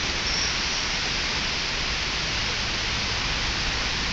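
Heavy tropical downpour: a steady, even hiss of rain pouring down.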